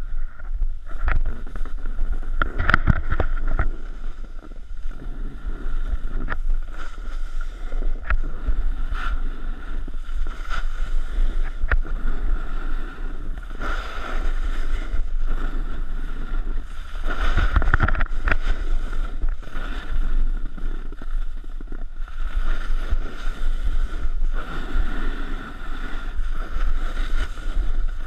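Snowboard sliding and carving over snow, a continuous hiss and scrape, mixed with wind buffeting the camera's microphone and scattered knocks from the board and the pole.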